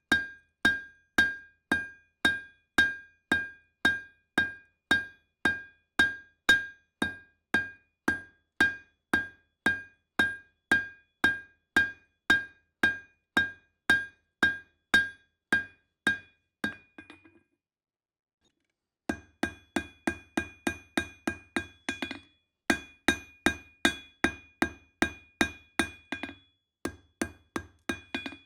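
Hand hammer striking hot steel on an anvil while forging a knife, in a steady rhythm of about two blows a second, each with a clear metallic ring. The blows stop for a couple of seconds about two-thirds of the way through, then resume heavier, in quicker uneven runs.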